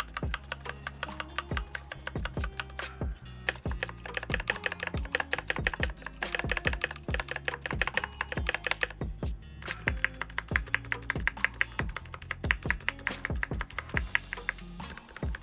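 Mechanical keyboard with Kailh Cream switches typed on in quick runs of key clacks, its stabilizers freshly relubed, with a short pause partway through. Background music plays underneath.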